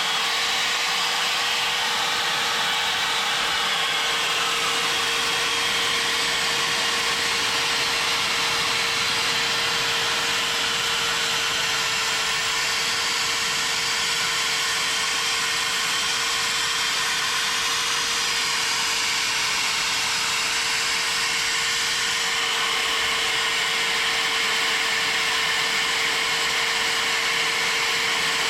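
A power tool or machine running steadily without a break: an even hiss with one constant mid-pitched tone under it.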